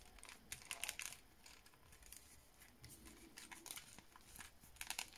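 Faint rustling and crinkling of an action figure's cloth suit and its rubbery armor pieces as fingers work the suit down over the figure's body, in scattered short bursts.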